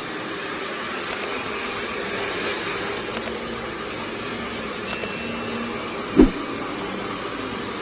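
Hand-held hair dryer blowing steadily on long hair, with a brief thump about six seconds in.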